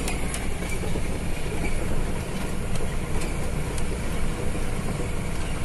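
Cargo truck driving slowly on a rough dirt road, heard from the cab with the side window down: a steady, loud rumble of engine, tyres and wind.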